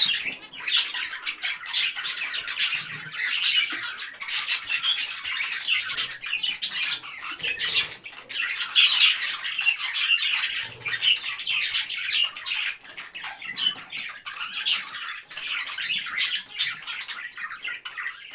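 Parrot calling in a near-continuous run of short squawks packed closely together, with only brief gaps.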